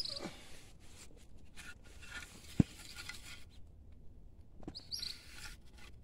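Handling noises as a phone is fitted against a strip of split bamboo: soft rustling and small clicks, with one sharp knock about two and a half seconds in. A couple of faint bird chirps, at the start and about five seconds in.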